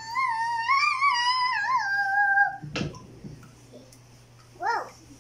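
A young girl's high, wordless sung voice wavering up and down in pitch for about two and a half seconds, then a single knock, and a brief high vocal sound near the end.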